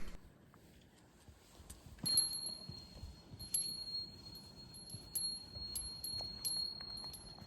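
A small metal bell jingling again and again at an uneven pace, with a steady ringing tone under the strikes. It starts about two seconds in, after a near-silent moment.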